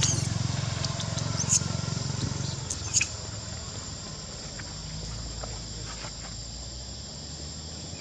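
Outdoor insects droning steadily in one high, thin note. A low rumble fades out about three seconds in, and two short sharp clicks come about a second and a half in and again at three seconds.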